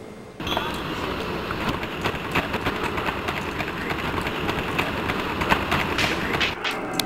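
Handling noise from a handheld video camera carried low at the side while walking: a dense rustling with many small knocks and clicks. It starts abruptly about half a second in.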